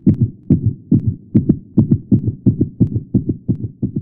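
Heartbeat sound effect on the soundtrack: steady double thumps, lub-dub, about two beats a second, quickening toward the end.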